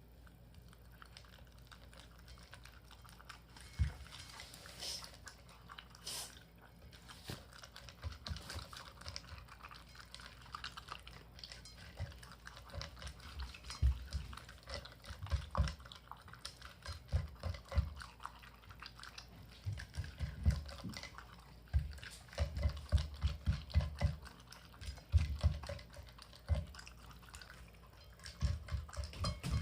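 A Shiba Inu eating dry dog food topped with boiled minced venison from a bowl: irregular chewing and crunching clicks with dull knocks, getting busier and louder about halfway through.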